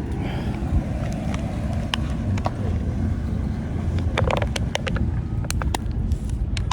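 Steady low outdoor rumble, with scattered sharp clicks that become a quick run of clicks and crackles from about four seconds in, as a plastic water bottle is handled.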